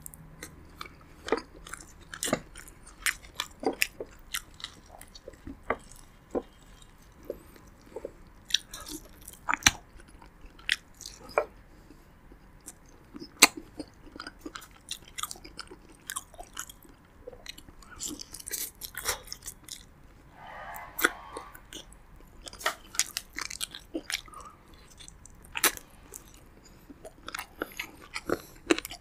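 Close-miked eating of roasted pigeon: chewing and biting with irregular sharp, wet mouth clicks and occasional crunches, sometimes several a second.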